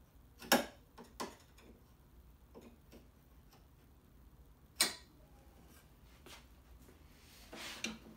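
Sharp clicks and light ticks of a steel square and a marking knife set against a Douglas fir board, three clicks standing out. A short scrape near the end as the square is shifted along the board.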